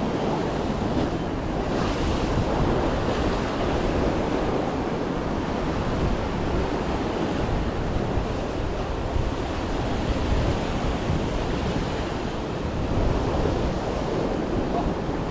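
Ocean surf breaking and washing over the rocks of a reef shoreline in a steady, continuous rush, with wind noise on the microphone.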